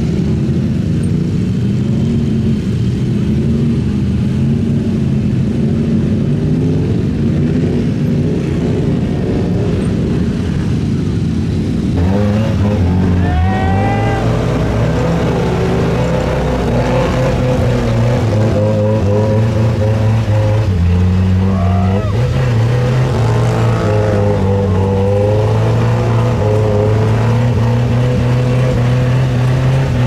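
Truck engines running steadily in a mud pit, then, after a cut about twelve seconds in, a lifted Suzuki Samurai's engine revving up and down repeatedly as it spins its tires through the mud.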